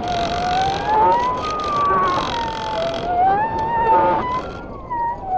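Air rushing over a free-falling stratospheric balloon payload after the balloon burst, heard on the camera's own microphone: a wavering whistle that slowly rises and falls in pitch, over wind noise that is heaviest in the first three seconds. These are the 'terrifying sounds of falling'.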